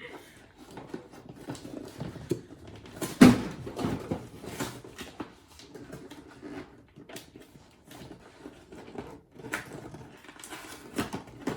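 Handling and opening a slime kit's packaging: a string of short clicks, taps and crinkles, with one louder thump about three seconds in.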